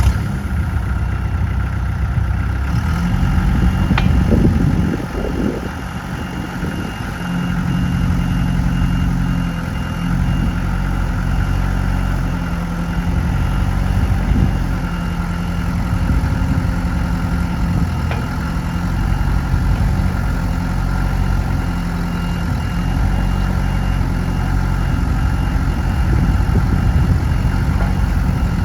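Kubota L48 backhoe's four-cylinder diesel engine idling steadily, its note shifting briefly a few seconds in.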